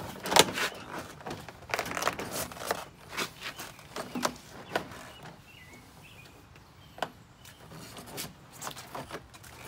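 Irregular sharp clicks and knocks of a vinyl siding outside corner piece being flexed and pressed into the siding channels by hand. The loudest click comes about half a second in.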